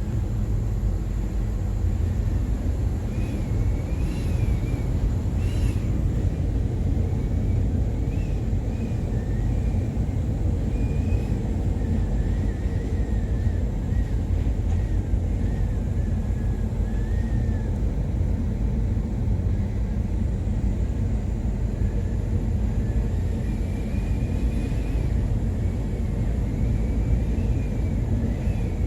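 Steady low rumble aboard a 277 m container ship in rough seas, with a faint wavering high whistle that comes and goes over it.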